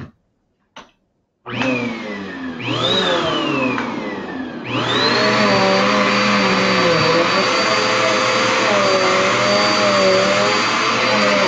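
Vacuum cleaner switched on about a second and a half in: its motor whine climbs and then sags. About five seconds in it jumps to a louder, steady run with a high, steady whine.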